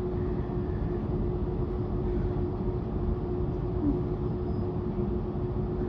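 Train running with a steady low rumble and a constant hum.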